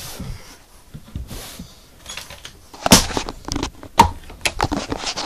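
A few sharp knocks and clicks, the loudest about three and four seconds in, from an overhead supply cabinet door in an ambulance being handled and opened.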